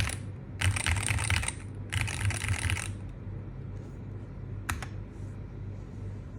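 Monsgeek M1W HE SP keyboard with magnetic Hall-effect switches being typed on fast: short bursts of rapid key clatter, about a second each, then a single keystroke near the end.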